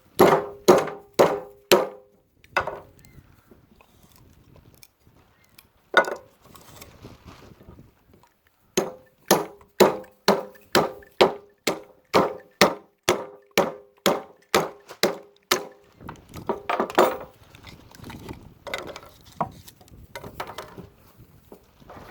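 Metal C-clamp used as a baton, hammering the spine of a homemade saw-blade-steel knife to split dry cedar: repeated sharp metallic strikes with a ringing tone. A quick cluster of blows at the start, a pause, then a long steady run of about two blows a second, with scattered blows near the end.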